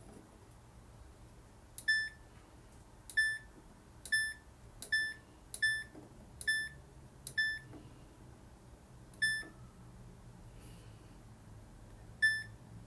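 Samsung front-loading washing machine's control panel beeping nine times, short beeps all at the same pitch at uneven intervals, as its buttons are pressed.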